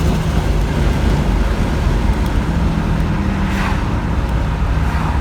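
Buick Grand National's turbocharged V6 running steadily under way, with road noise, as the car is driven on a test run.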